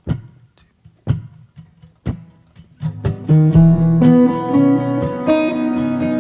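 Opening of a song: a few sharp hits about a second apart, then sustained strummed guitar chords come in about three seconds in and carry on.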